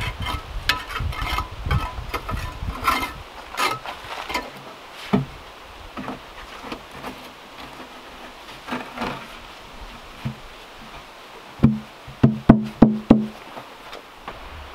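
Light clicks and taps in the first few seconds, then a quick run of about five loud, hollow knocks with a short low ring near the end.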